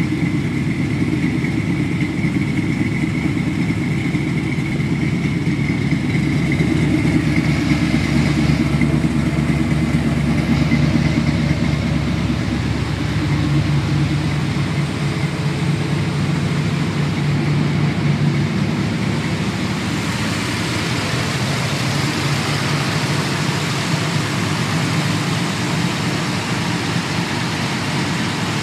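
A V8-swapped Mazda RX-7's 355 V8, with a mild cam, long-tube headers and true dual exhaust, idling steadily with a deep, even exhaust note. The sound gets a little brighter in its last third as the microphone moves over the open engine bay.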